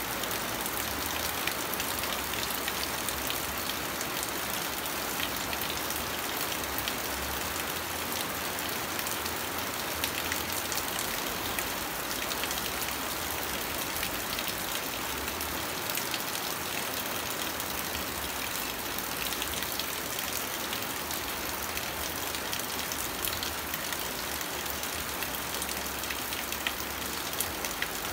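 Steady rain falling: a dense, even hiss with many scattered sharp drop ticks.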